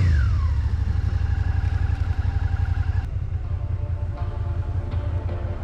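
Motorcycle engine running with a steady low rumble, and a brief whine falling in pitch right at the start.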